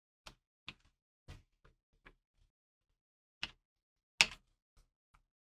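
Carbide rotary burr bits clicking against their clear plastic holder as a gloved hand handles them and lifts one out: a string of sparse light clicks and taps, the loudest about four seconds in.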